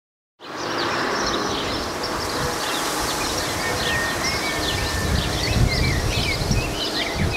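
Small birds chirping over a steady outdoor hiss, with wind now and then rumbling low on the microphone. The sound cuts in suddenly about half a second in.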